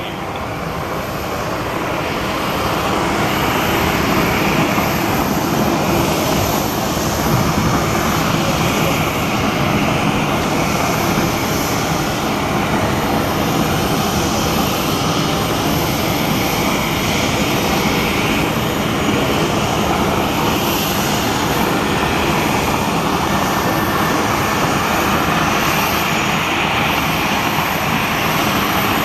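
An Airbus A320-216 airliner's CFM56 jet engines heard during touchdown and the landing roll. The engine noise swells over the first few seconds, then holds as a steady, loud rush while the airliner rolls down the runway.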